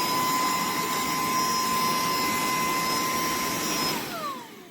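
Cordless handheld vacuum cleaner running with a steady high motor whine over a rush of air. About four seconds in it is switched off and the motor winds down in falling pitch.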